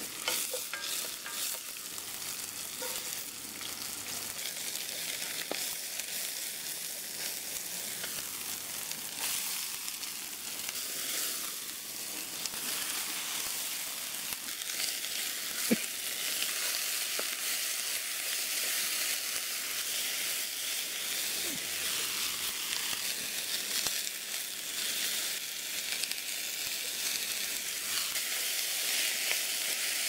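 Mixed vegetables stir-frying in hot oil in a skillet, stirred with a wooden spoon: a steady high sizzle with scattered small clicks and one sharper tick about halfway through.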